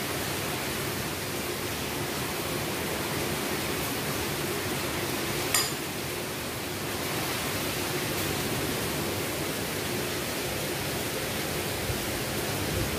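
Steady hiss with a faint low hum underneath, and a single short click about five and a half seconds in.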